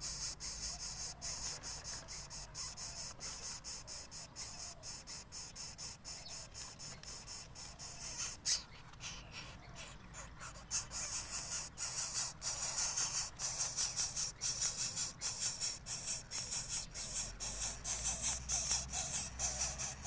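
Greater coucal nestlings giving rapid, rasping hiss-like begging calls, about three a second, growing louder from about halfway through, when an adult arrives at the nest with food.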